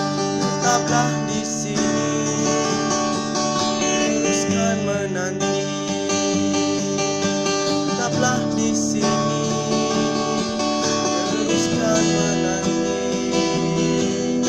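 Acoustic guitar playing chords of a slow ballad, in the instrumental part near the song's end.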